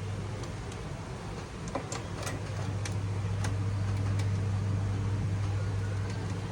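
A handful of light, sharp clicks and taps, from small laptop parts and tools being handled, between about two and three and a half seconds in. Under them runs a steady low electrical hum.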